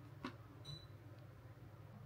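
Near silence: room tone with a steady low hum and a couple of faint clicks.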